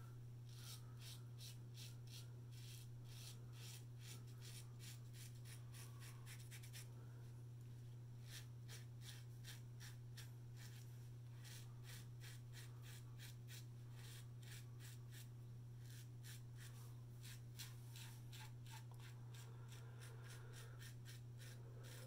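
Faint scrape of a GEM Pushbutton single-edge safety razor cutting stubble through shaving lather in quick short touch-up strokes, about three a second, with a brief pause about seven seconds in. A steady low hum runs underneath.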